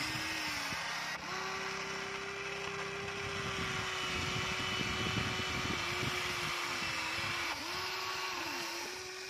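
Electric motors of a Huina RC toy excavator whining steadily, the pitch dipping briefly twice near the end as the arm takes up load, over gravel crunching and scraping as the bucket digs and lifts a load.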